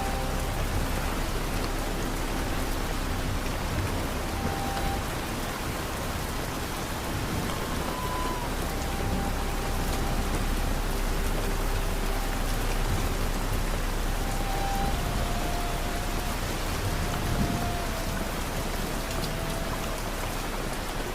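Steady rain falling, an even hiss, with a few faint held notes of soft music over it.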